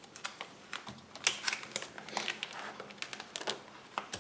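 Clear plastic pocket pages of a card binder crinkling and rustling as a page is turned and handled, with a run of small irregular clicks and crackles, loudest about a second in.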